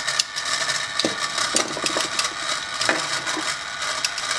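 Electric motor and gear train of a 1970s radio-controlled Datsun 280Z toy car running, a continuous crackling, rattling whir with scattered clicks. It is a sign that the car's receiver is picking up the transmitter's signal.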